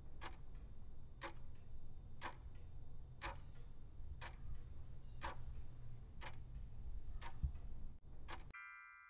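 Countdown timer sound effect: a clock tick once a second, eight ticks over a steady low rumble, then a bright multi-tone chime about eight and a half seconds in that rings out and fades, marking time up.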